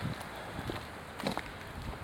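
Footsteps of a person walking: a few separate steps, the loudest about a second and a quarter in.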